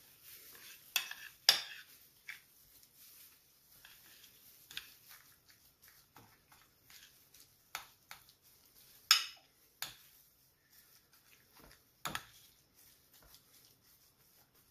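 A metal spoon stirring tuna and mayonnaise in a glass baking dish, clinking and scraping against the glass in irregular knocks. The sharpest clinks come about a second and a half in and about nine seconds in.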